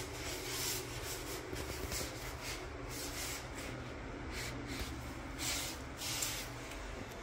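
Paper towel rubbing over wet shower floor tile in a series of short, irregular wiping strokes, over the steady low hum of a bathroom exhaust fan.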